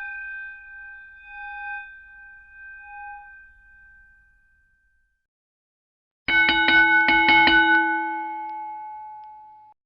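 A bell's ringing tone fades out over the first few seconds, its pitch pulsing slowly as it dies away. After a short silence, a lower-pitched bell is struck about six times in quick succession, about five strikes a second. It rings on, fading, and cuts off suddenly near the end.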